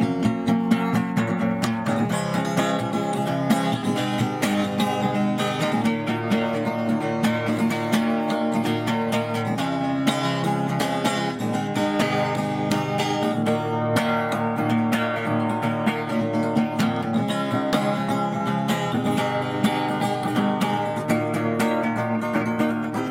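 Acoustic guitar strummed steadily, playing chords as continuous music.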